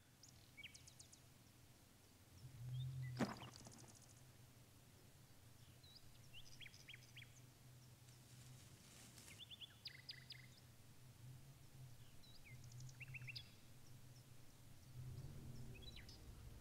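Quiet outdoor ambience: faint, scattered bird chirps over a low, steady hum, with a single click about three seconds in.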